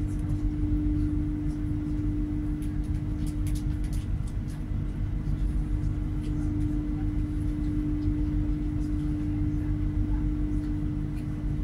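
The cabin of a GWR Class 800 bi-mode train: a steady low rumble with a steady hum and a few faint clicks.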